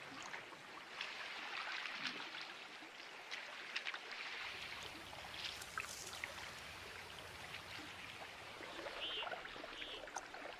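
Meltwater trickling and running in a river thawing out in spring, with many small scattered ticks and drips.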